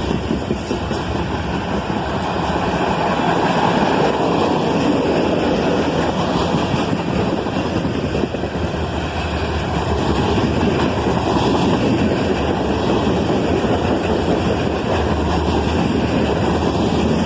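Freight cars of a CSX mixed manifest train rolling past: a steady rumble of steel wheels on rail.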